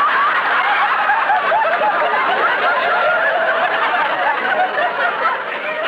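A studio audience laughing at length, many voices together, easing off slightly near the end.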